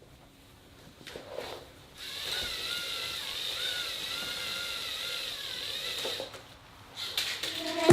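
Small electric motors (LEGO EV3) whining steadily for about four seconds as they drive a K'nex roller coaster's elevator lift, the pitch wavering slightly; a few clicks near the end.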